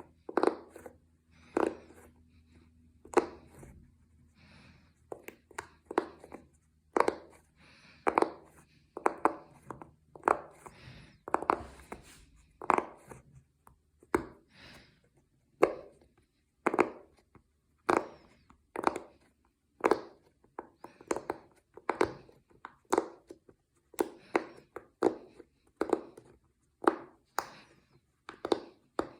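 Silicone pop it fidget toy bubbles being pressed in one after another: a steady run of short, sharp pops, about one or two a second.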